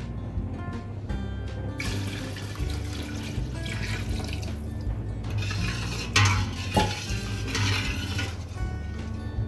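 Water poured from a stainless steel bowl into a pot of soup stock, splashing in several pours over steady background music.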